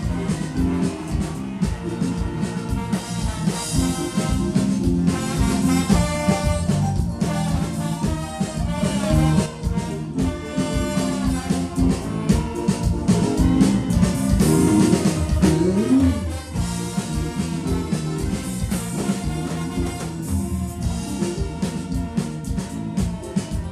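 Dance band (orquestra) playing lively music with a steady drum beat, continuous and loud, with one sliding note about two-thirds of the way through.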